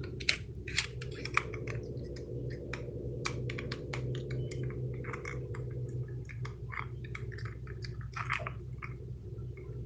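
Plastic fidget toys being clicked and handled close to the microphone: a quick, irregular run of small clicks and taps over a steady low hum.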